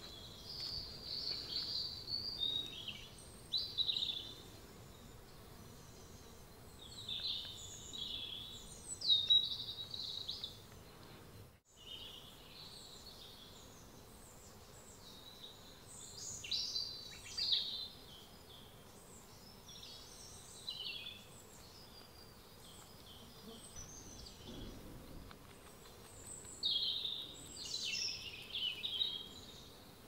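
Songbirds singing in woodland: short, high, varied song phrases every few seconds over a faint steady background. The sound drops out for an instant about twelve seconds in.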